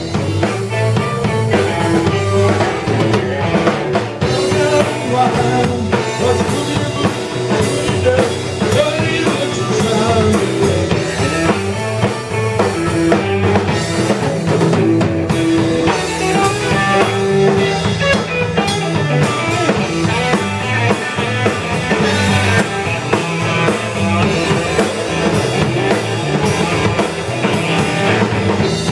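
Live blues band playing an instrumental passage: electric guitars over a drum kit keeping a steady beat.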